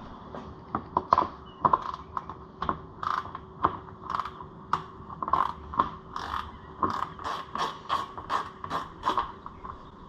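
Ratchet wrench clicking over and over in uneven strokes, about two or three clicks a second, as a 10 mm bolt is worked loose.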